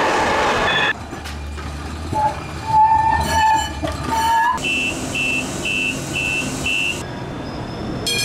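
MUNI Metro light-rail train sounds in quick cuts: running noise, then a held wheel squeal of about two seconds that rises at the end, then five short, evenly spaced high electronic beeps.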